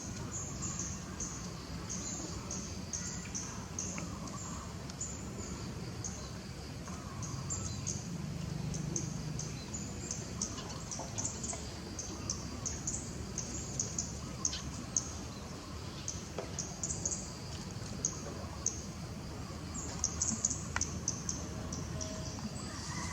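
Small birds chirping in many short, high calls, in clusters, over a steady low background hum.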